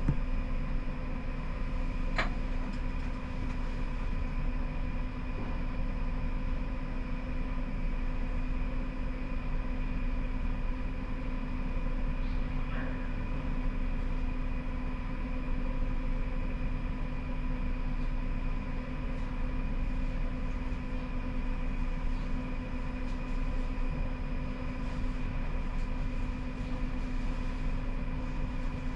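Siemens Combino tram heard from the driver's cab: a steady electrical hum over a low rumble, holding one pitch throughout, with a single sharp click about two seconds in.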